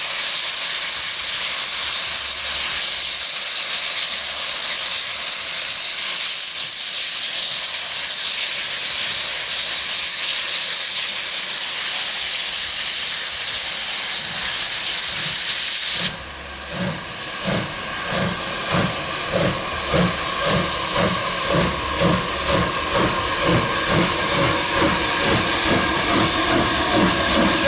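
Southern Railway USA class 0-6-0 tank engine No. 30065 starting a train. A loud, steady hiss of steam runs for about sixteen seconds, then changes suddenly to its exhaust beats, slow at first and quickening to about two a second, with steam hissing from the open cylinder drain cocks.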